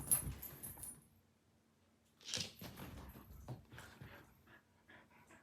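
Two dogs in rough play: short bouts of scuffling and clattering, with jingling like collar tags. It breaks off for about a second, then comes back in a cluster that trails off.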